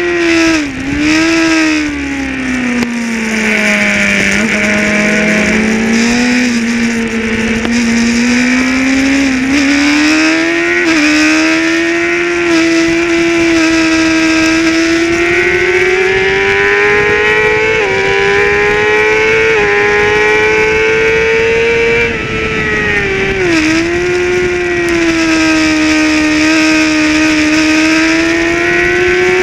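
Racing motorcycle engine at high revs, recorded by an onboard camera, with wind rush over it. Its pitch drops sharply about a second in and again near the end as the rider brakes and shifts down for corners, and climbs between them with a few quick dips at the upshifts.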